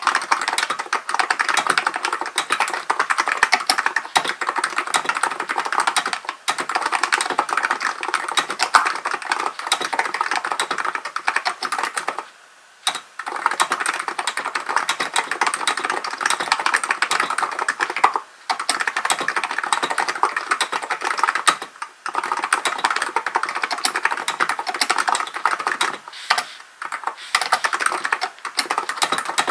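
Hansung GK898B electro-capacitive (non-contact, Topre-style) keyboard being typed on in fast, continuous runs of keystrokes, broken by a few short pauses, the longest about halfway through.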